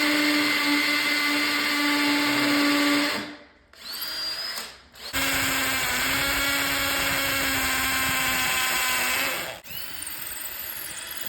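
Power drill running in two long steady bursts of about three and four seconds, with a short pause between them and quieter motor whine after each.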